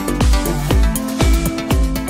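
Electronic background music with a steady kick-drum beat, about two beats a second, under sustained synth notes.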